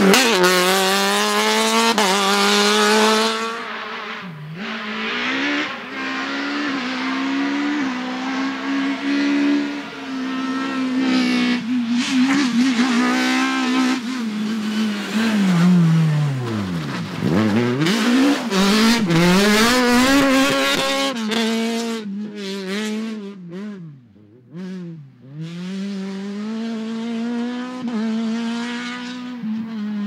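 Peugeot 306 Maxi Kitcar's naturally aspirated 2.0-litre four-cylinder rally engine revving hard through gear changes on several passes at speed, pitch climbing and dropping again and again. About halfway through the revs fall steeply, and near the end the engine fades and returns as the car runs away into the distance.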